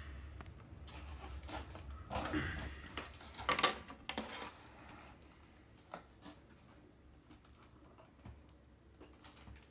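A cardboard box being moved and handled, with rustling and scraping for the first few seconds, then a few faint clicks as the zip ties inside it are worked at with scissors.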